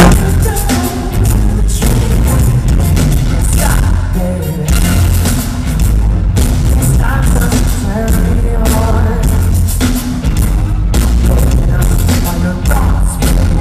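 Live band in an arena playing loud pop/R&B, heard from the crowd: heavy bass and sharp drum hits with a male lead singer.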